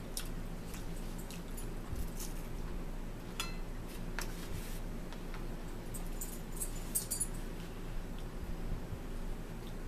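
Scattered light clinks and taps of metal forks against a plate and a plastic bowl while eating, one clink ringing briefly about three and a half seconds in and a flurry of small clicks a few seconds later, over a steady low hum.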